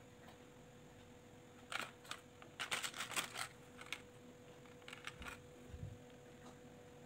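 Small plastic beads and their plastic compartment tray clicking and rattling lightly as fingers pick through them and thread a bead onto elastic cord, in a cluster of quick clicks about two to five seconds in, with a soft low bump near the end. A faint steady electrical hum underneath.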